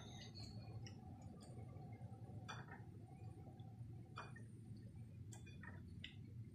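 Low steady hum with about half a dozen faint, soft clicks and taps as capelin are mixed by hand with egg in a bowl.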